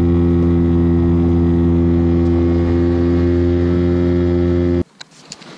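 Small boat's outboard motor running at a steady speed, a constant drone that cuts off suddenly about five seconds in.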